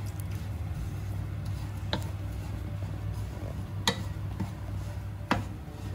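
A wooden spoon stirring dry rolled oats as they roast in a non-stick frying pan, with a soft scrape of the flakes and three sharp taps of the spoon on the pan about two seconds apart. A steady low hum lies under it.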